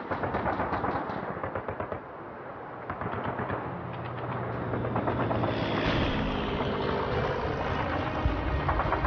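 Battle sound effects: rapid machine-gun fire in quick bursts, with a deeper boom about halfway through and more firing after it.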